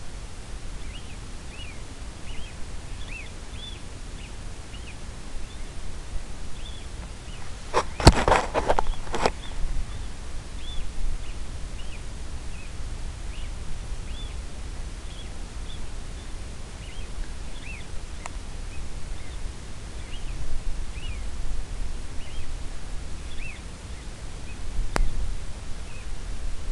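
Electronic predator caller playing a rodent distress call: short high squeaks scattered irregularly, over a low background rumble. About eight seconds in, a brief loud clatter.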